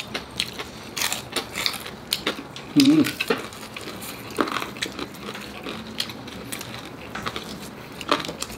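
Close-up crunching of crispy deep-skinned pork, air-fried lechon kawali, being bitten and chewed: a run of irregular sharp crackles, with a short hummed 'mm' about three seconds in.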